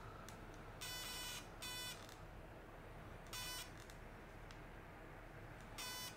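Handheld electro-stimulation pen beeping while it stimulates a needle in the lower back: four short electronic beeps, the first two close together about a second in, then one near the middle and one near the end.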